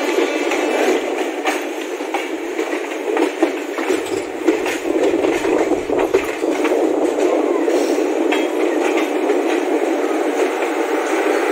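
Passenger train coaches passing at close range: a steady rumble of steel wheels on the rails, with frequent sharp clicks and clatter as the wheels run over rail joints.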